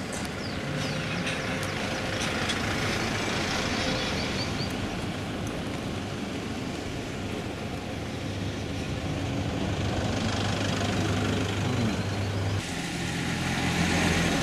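Bus engine running under load, a steady drone that shifts in pitch as the engine speed changes, with a sudden drop about twelve and a half seconds in, like a gear change.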